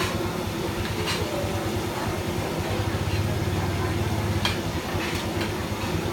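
Steady low rumble of a gas burner flame under a wok of hot frying oil, with the oil hissing and bubbling. Sharp metallic clinks of the perforated skimmer against the wok come twice, about a second in and again about four and a half seconds in.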